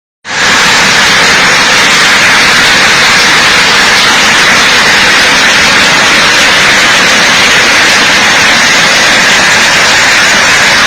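Heavy hailstorm: a loud, dense, steady roar of hail and rain pelting down, setting in abruptly just after a short break.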